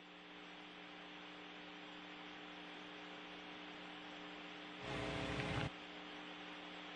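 Steady hiss and electrical hum on an open air-to-ground radio audio channel. About five seconds in comes a louder burst of static that lasts under a second.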